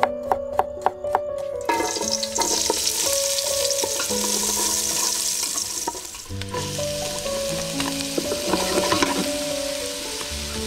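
A few quick knife strokes chopping garlic cloves on a wooden cutting board. From about two seconds in, hot oil sizzles steadily in a steel pot. After a short dip near the middle, it fries on with sliced shallots and garlic in it. Soft background music plays underneath.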